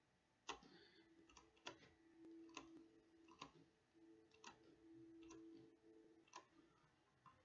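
Faint computer mouse clicks, single clicks about once a second, with a faint low hum coming and going between them.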